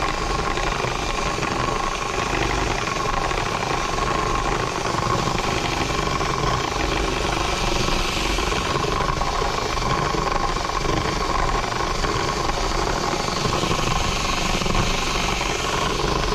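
Handheld power tool running steadily, its bit worked around a hole in a plastic center console to widen it, cutting without a pause.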